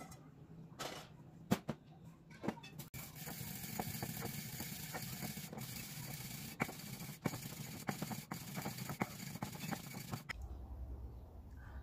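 Toasted spice seeds tipped from a steel frying pan into a mortar, with a few clatters. Then a wooden pestle pounds and grinds them: a steady gritty scraping with knocks about once or twice a second, which cuts off suddenly near the end.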